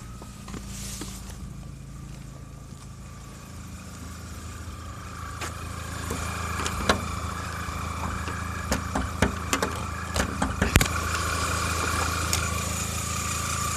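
Volkswagen 1.8-litre turbo four-cylinder engine idling, with sharp clicks and knocks as the hood is opened. The engine grows louder from about four seconds in, and a steady high whistle comes up over it, the noise the owner puts down to a vacuum leak at a hose clamp gone loose, which is making the engine misfire.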